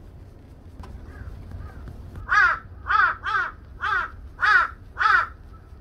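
Crow cawing six times in a quick series, about two caws a second, starting about two seconds in.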